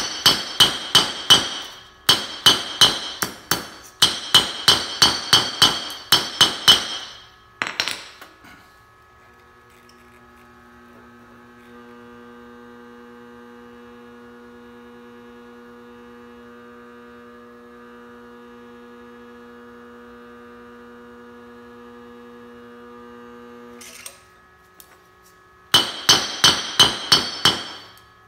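Hammer blows ringing on a small steel anvil as a hot steel bolt is forged, in quick runs of about four strikes a second with short breaks between them. About eight seconds in, the hammering stops and a homemade 3 kW induction heater hums steadily with several fixed tones for about fourteen seconds while it heats the bolt red in its copper coil. Hammering starts again near the end.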